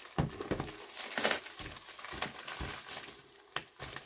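Packaging being handled and opened: irregular rustling and crinkling with a few short clicks and knocks.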